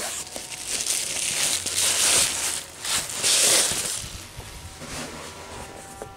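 Clear plastic bag and foam wrapping crinkling as they are handled and pulled off a cardboard box, in a few loud swells over the first four seconds, then quieter rustling.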